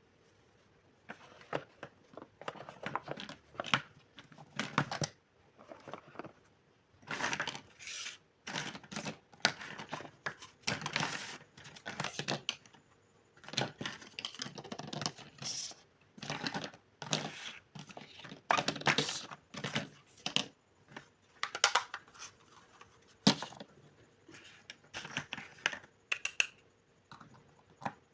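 Packaging being torn and crinkled by hand while unboxing, in irregular bunches of short rasping, crackling strokes with brief pauses between them.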